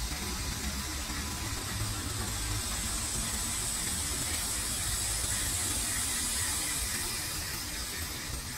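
Portable line boring machine running, its boring bar turning a cutting tool through a steel bore: a steady hissing cutting noise over a low rumble.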